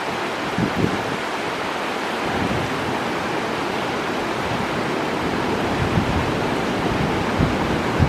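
River water rushing over shallow rapids, a steady, even noise. A few low gusts of wind hit the microphone, about a second in and again near the end.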